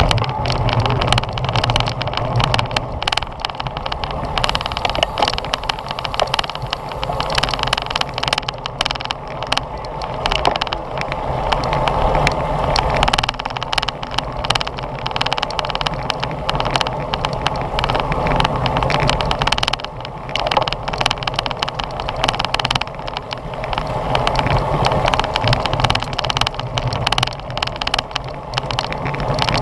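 Wind rushing over the microphone of a GoPro mounted on a racing bicycle, with dense small rattles and knocks from the bike and road.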